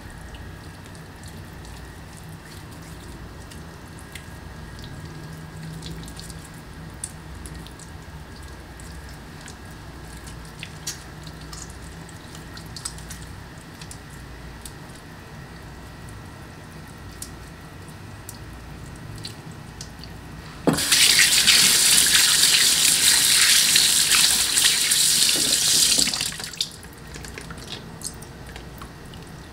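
A tap runs into a stainless steel sink for about six seconds, turned on suddenly some twenty seconds in and shut off sharply. Before it, faint small clicks and handling sounds come from raw chicken wings being rubbed between wet fingers.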